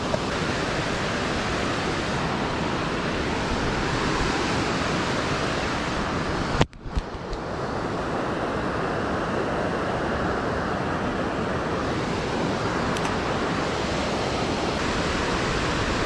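Steady rushing of water pouring over a dam spillway into a creek, broken about seven seconds in by a short knock and a brief drop-out.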